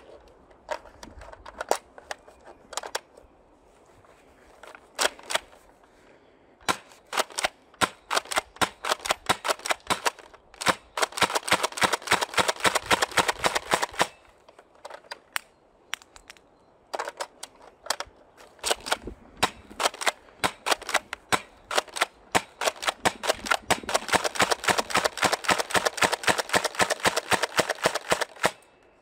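Airsoft guns firing. Scattered single shots give way to two long strings of rapid fire at about ten shots a second, each shot a short, sharp snap.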